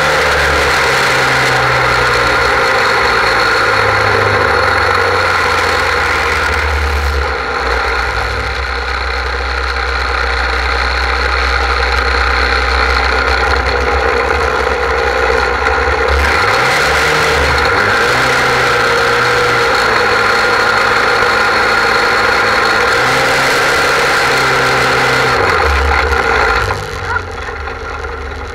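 Portable fire pump engine running loud and steady, its pitch briefly dipping and recovering about halfway through, then dropping off near the end.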